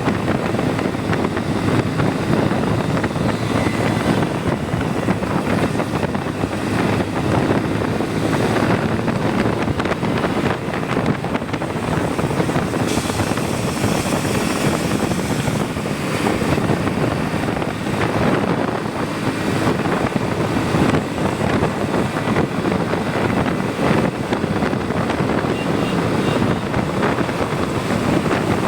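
Motorcycle engine running steadily on a ride, with wind rushing over the microphone.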